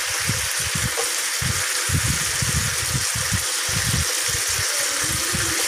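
Chicken barbecue pieces sizzling on an electric tabletop grill pan: a steady frying hiss, with an uneven low rumble underneath.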